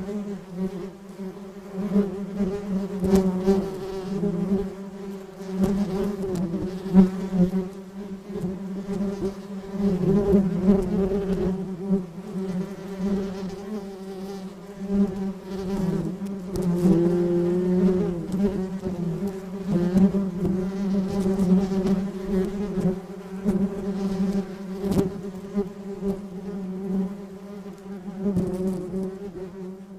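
A bee buzzing in flight, a steady wingbeat drone near 200 Hz that swells and fades and wavers slightly in pitch as it flies about.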